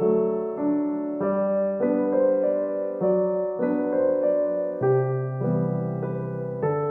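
Background piano music, a slow melody of notes struck about twice a second.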